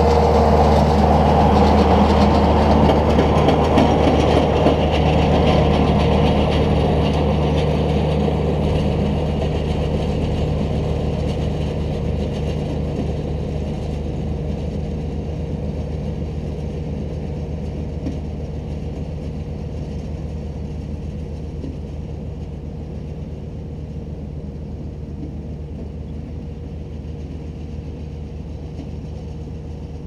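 New Holland Boomer 50 compact tractor's diesel engine running steadily while pulling a working mini round baler, loud at first and then fading gradually as it moves away.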